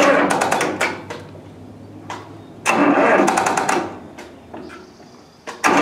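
Freshly rebuilt John Deere 2030 four-cylinder diesel being turned over by its starter in short cranking bursts of about a second and a half, twice and again near the end, without catching: the battery is too weak to start it.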